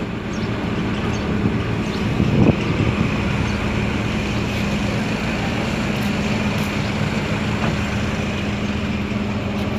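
Steady mechanical hum with outdoor traffic-type background noise, unchanging throughout. A brief low thud about two and a half seconds in.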